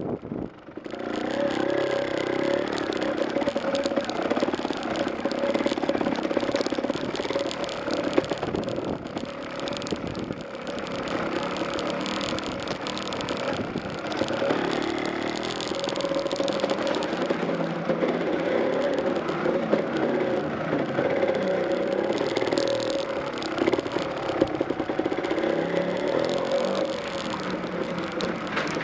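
Motorcycle engine running at low, fairly steady revs while riding a rough rocky track, with clatter from the bike over stones. The sound dips briefly just after the start.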